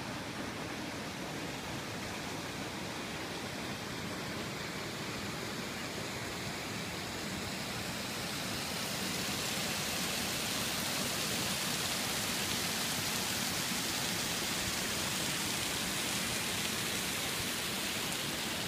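Small waterfall feeding a pond: a steady rush of falling water that grows louder and brighter about halfway through.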